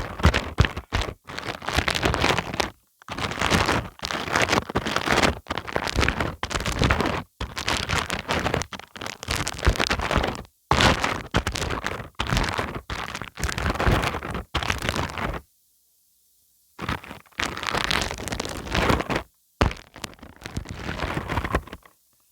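White wood glue spread over a wide surface crackling and smacking as it is worked, in a run of sticky bursts about a second long with short gaps and a longer pause about two-thirds of the way through.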